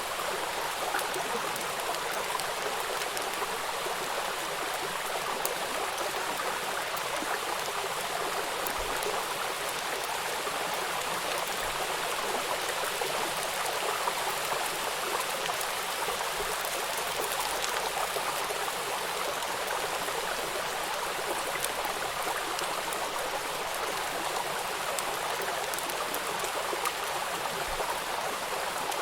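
Stream water running steadily, a constant even rush of flowing water.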